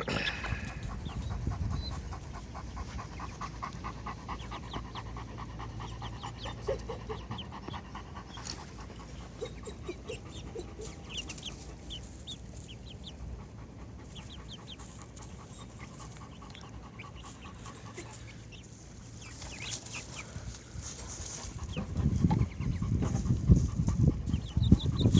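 Chickens clucking and peeping softly, with faint high chirps repeating and a few short low clucks. A louder, rough low noise rises in the last few seconds.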